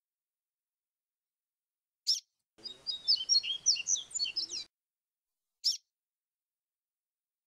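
Papa-capim seedeater singing in the fluty 'grego' style: a single short chirp, then a quick run of high whistled notes lasting about two seconds, then another single chirp.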